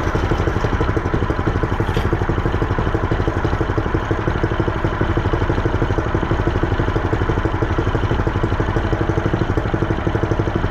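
Predator 212 single-cylinder four-stroke engine idling steadily, with an even, rapid pulse.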